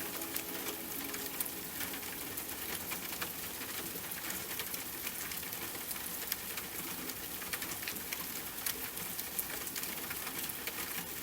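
Steady rain falling, with many separate drop ticks scattered through an even hiss.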